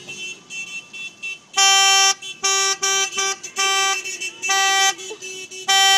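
Car horn honking in a run of blasts of uneven length, a few short toots and longer half-second honks, with a long blast near the end.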